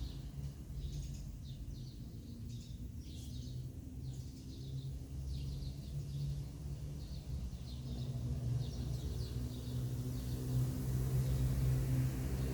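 Small birds chirping in quick, short calls over a steady low hum, which grows louder toward the end.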